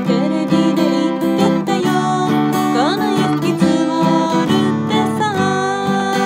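Steel-string acoustic guitar strummed in a steady rhythm, with a woman singing over it.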